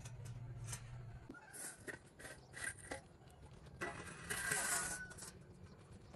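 Steel roof beam scraping and knocking against the rough concrete blocks of a wall top as it is handled and slid into place, with the longest scrape about two-thirds of the way in.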